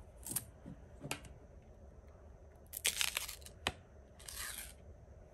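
Plastic seal on a jar of whipped soap scrub being torn and peeled off by hand: several short tearing, crinkling rasps and one sharp click about three and a half seconds in.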